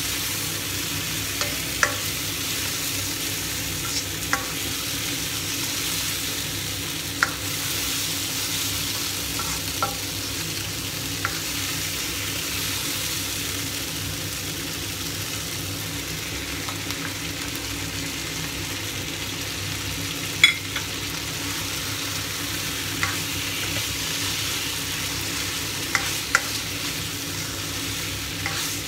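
Eggplant pieces sizzling and frying in a nonstick wok as a spatula stirs them, with a steady hiss. Short clicks of the spatula against the pan come every few seconds, one louder knock about two-thirds of the way through.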